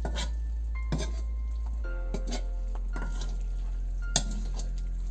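Metal ladle stirring liver and vegetables in a kazan, scraping and clinking against the pot several times, the loudest knock about four seconds in. Background music with held chords runs underneath.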